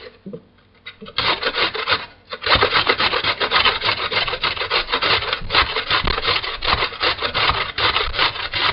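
Carrot being grated on a large hand grater: rapid rasping strokes, with two short pauses in the first couple of seconds, then steady strokes to the end.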